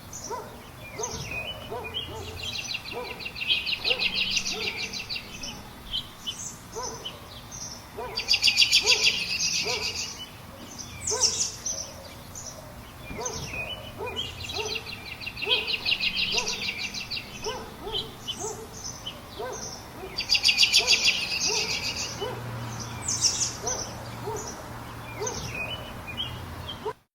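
Bird ambience: several birds calling and singing at once, with fast, high trills returning every few seconds over a run of short, lower repeated notes. The recording cuts off suddenly near the end.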